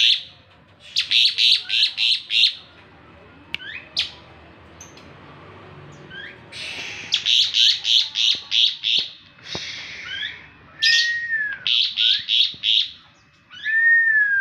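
Asian pied starling (jalak suren) calling: three bouts of rapid harsh chattering notes, about five a second, broken by short whistled glides. A clear arched whistle falls away near the end.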